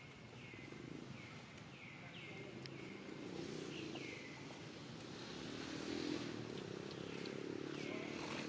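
Outdoor ambience: short falling chirps repeat about twice a second, thinning out after about four seconds, over a low steady hum that grows louder about three seconds in.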